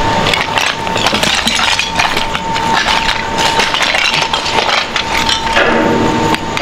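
Irregular metallic clinks and taps over a steady high-pitched whine, the unexplained sound that the ghost hunters take to come from inside an old machine.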